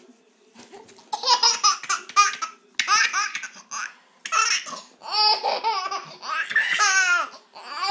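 Baby laughing on the changing mat in a run of high-pitched bursts, starting about a second in.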